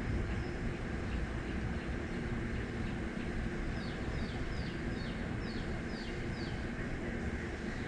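A bird singing a run of about seven short, falling notes, two or three a second, over a steady low rumble.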